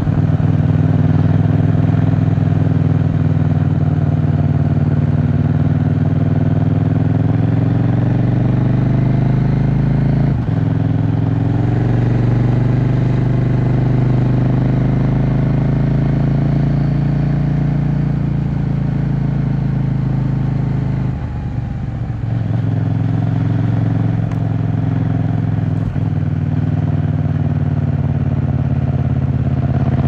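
KTM 790 Duke's parallel-twin engine running through a Leo Vince aftermarket exhaust while the bike is ridden: a steady engine note whose pitch slowly rises and falls, with three brief drops in the sound, about ten seconds in, around twenty-one seconds in and near twenty-six seconds.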